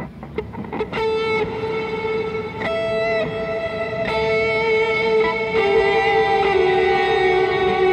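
Electric guitar played through an EarthQuaker Devices Afterneath MK3 reverb pedal with its diffuse knob turned up, so its many tiny delay lines smear into a smooth reverb wash rather than separate audible delays. A few light string clicks, then single notes picked about every second and a half, each ringing on into the next.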